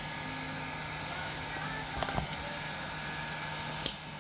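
Sharp clicks and snips of a hand tool cutting open the wiring at a connector: a small cluster about two seconds in and one sharper click near the end, over a steady low hum.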